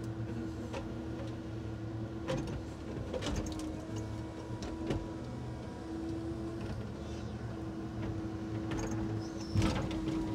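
Hydraulic loader crane on a timber truck working with the engine running: a steady hum with a held tone, heard from inside the crane's cab. A few short knocks and clacks sound as the grapple handles wooden timber mats.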